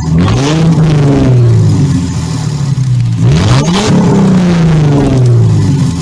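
Car engine revved twice, about three seconds apart: each time the pitch shoots up quickly, then falls slowly back toward idle.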